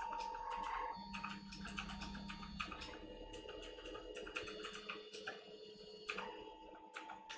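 3D printer at work: its stepper motors whine in steady tones that jump to a new pitch every second or two as the print head and bed change moves, with rapid ticking from the moving axes.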